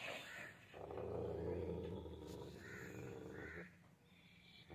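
Dog growling low and steadily for about three seconds, starting near the beginning and stopping abruptly; a sign of aggression guarding food.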